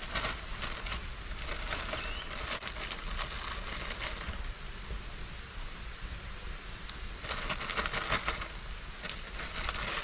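Steady rain hiss, with a resealable plastic bag crinkling in the hands in bursts: near the start, around two to three seconds in, and again from about seven to nine and a half seconds.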